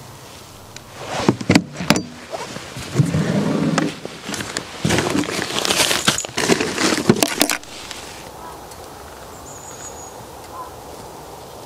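Bags being pulled out of an aluminium motorcycle top case: rustling fabric with sharp clicks and knocks against the case for several seconds, stopping suddenly a little past halfway. Faint bird chirps follow.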